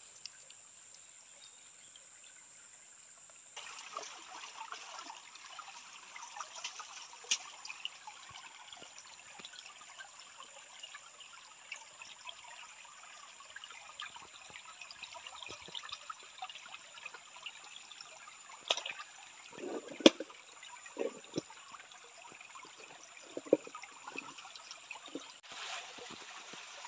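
Shallow stream water trickling and flowing over stones, growing louder about three and a half seconds in. Scattered small clicks and rustles from hands picking through leaf litter in a nylon mesh scoop net, with a few louder knocks in the second half.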